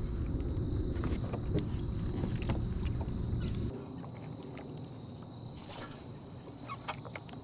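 Scattered light clicks and clinks over a low rumble that drops away sharply about four seconds in.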